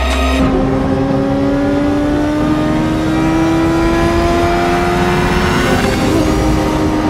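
Car engine under hard acceleration, its pitch climbing steadily for about five seconds, then dropping with a gear change near the end and starting to climb again.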